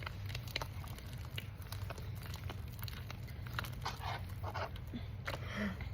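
Slime being mixed by hand: many short, irregular sticky clicks and squelches, over a steady low hum.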